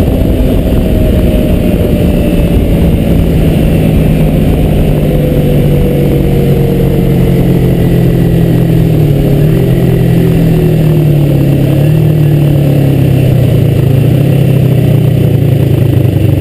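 2003 Kawasaki Ninja 250's parallel-twin engine running under way over heavy wind rush. Its pitch falls gradually as the bike slows, with a brief dip and rise about nine seconds in.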